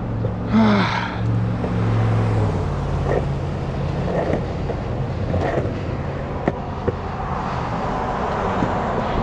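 Sector 9 longboard's wheels rolling over a concrete sidewalk with a steady rumble and a few short clacks at the slab joints. Cars pass on the road alongside; one goes by with a falling pitch about half a second in.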